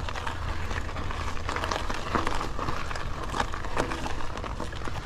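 Polygon Siskiu T7 mountain bike climbing a rocky dirt trail, heard from a handlebar-mounted action camera: tyres crunching over loose stones, with irregular clicks and rattles from the bike over a steady low wind rumble.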